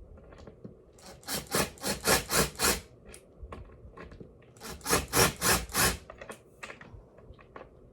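Screws being turned by hand into the table's particleboard panel, each twist a short rasping scrape: two runs of about five strokes, one after the other.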